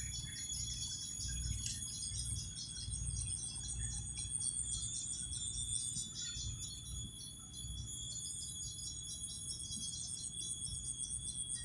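A chorus of insects in the swamp: rapid pulsing chirps overlaid with steady high-pitched whines, over a low, uneven rumble.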